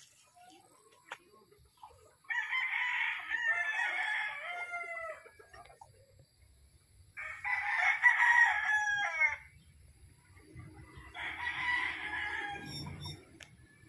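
Gamecocks crowing: three long crows a few seconds apart, each lasting about two to three seconds.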